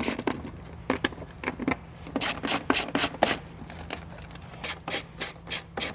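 Hand ratchet with a Torx 30 socket clicking as it backs out panel bolts: short runs of quick strokes, about four a second, a few scattered strokes first, then two runs later on.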